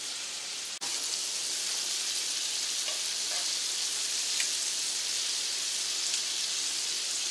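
Chicken pieces frying in hot Crisco shortening in a cast iron skillet: a steady sizzle with a few faint crackles, briefly dropping out just under a second in.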